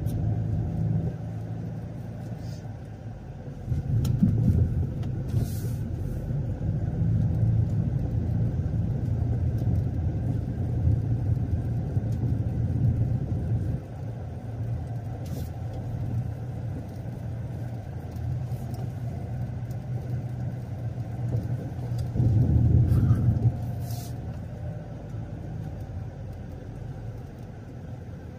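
Low rumble of a car on the move, engine and road noise, swelling louder about four seconds in and again around twenty-two seconds.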